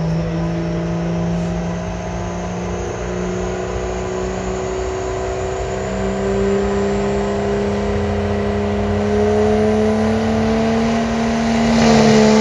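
Pro Street diesel pickup's engine working hard under load on a sled pull, its pitch climbing slowly and steadily, getting louder near the end.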